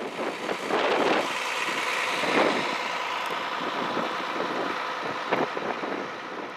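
Strong wind gusting and buffeting across the microphone.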